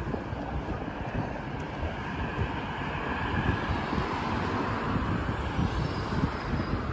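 Wind buffeting the microphone over road traffic noise, with the traffic swelling about halfway through.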